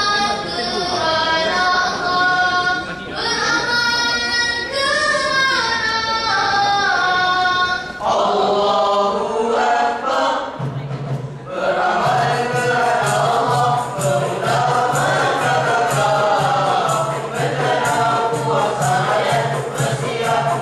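A group of boys singing selawat, Islamic devotional praise of the Prophet in nasyid style, into hand-held microphones. A single melodic line leads at first. About eight seconds in, the voices fill out, and soon after a steady low tone and a regular beat join beneath them.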